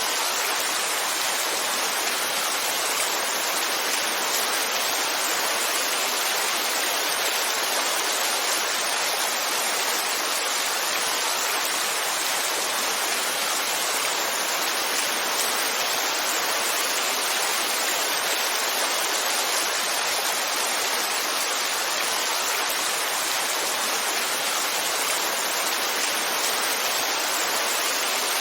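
Heavy rain falling steadily: a constant, even hiss with no single drops, thunder or other sounds standing out.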